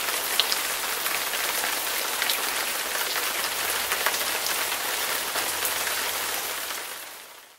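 Steady rain-like hiss with scattered light taps, fading out over the last second.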